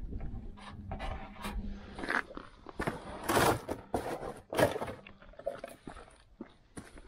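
Plastic spreader scraping body filler onto the sheet metal of a car's lower quarter panel in short, irregular strokes, with a few louder scuffs about three and a half and four and a half seconds in.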